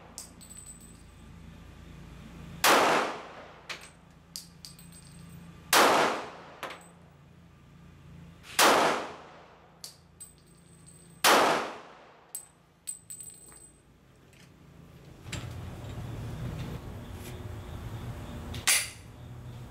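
Glock 23 .40 S&W pistol fired slowly: four loud shots about three seconds apart, each trailing off in echo, then a pause and one more shot near the end. Small sharp clicks and knocks fall between the shots.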